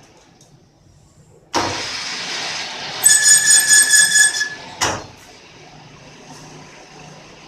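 Metal lathe making a thread-cutting pass. The cutting noise starts suddenly about a second and a half in, turns into a pulsing high squeal of the tool on the work for over a second, and stops sharply. A short burst follows near five seconds.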